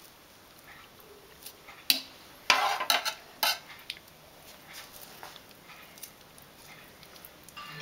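Small kitchen knife clicking and scraping against the plastic bowl and steel sink while charred skin is peeled off roasted tomatoes. A sharp click just before two seconds in, then a louder clatter of several knocks and scraping from about two and a half to three and a half seconds in, then light ticks.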